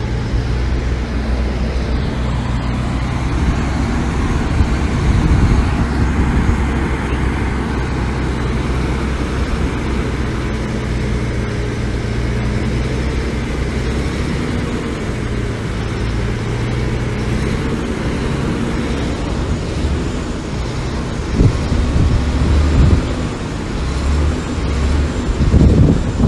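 Diesel engine of heavy earthmoving machinery running steadily under load, with a few louder knocks and clatters near the end.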